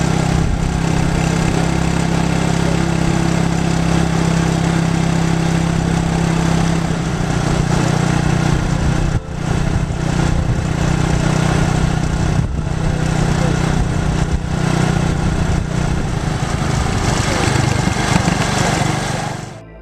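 Engine running steadily with road and wind noise, heard from inside a moving vehicle; the engine note shifts about seven seconds in.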